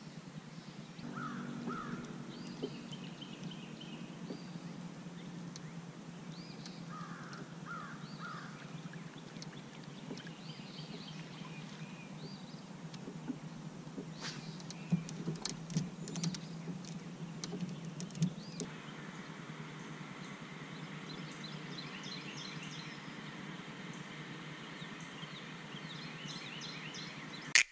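Wild birds calling: short calls in groups of two or three and higher chirps, growing into a denser chorus in the second half, over a steady low hum. About halfway through, a run of sharp clicks and knocks comes as a fishing rod is cast from the kayak.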